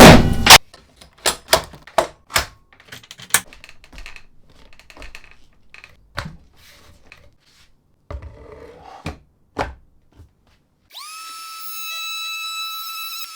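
A run of sharp wooden knocks and clicks as parts of a trim-router table are handled and fitted. About eleven seconds in, a power-tool motor spins up with a quick rising whine and settles into a steady high whine.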